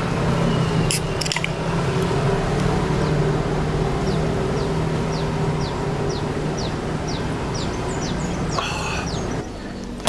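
A small engine running steadily, with a run of short high chirps, about two a second, through the middle.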